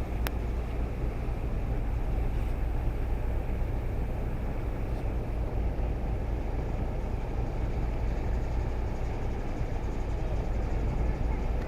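Steady low rumble and rushing noise of a ship underway at sea, with one sharp click just after the start.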